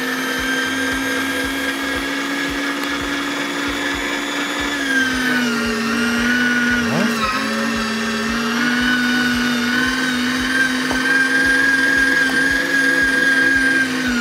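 Vitek VT-3618 electric meat grinder running, mincing meat: a steady motor whine whose pitch sags a little about five seconds in as the meat loads the motor, dips briefly again a couple of seconds later, then recovers.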